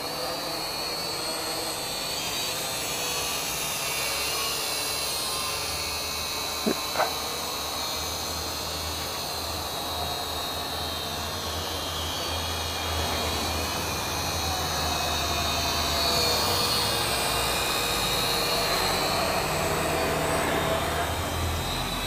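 DWI DF32 micro quadcopter, a Cyma X5 clone, hovering and flying: the small motors and propellers whine steadily, the pitch wavering as it flies. Two short clicks about seven seconds in.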